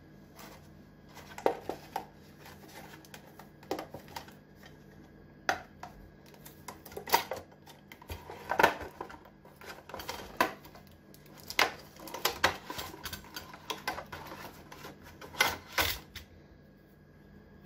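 Clear plastic packaging crinkling and clicking as a small stainless-steel utensil with a wire handle is unwrapped and handled, in irregular sharp snaps and taps, about a dozen louder ones. A faint steady hum lies underneath.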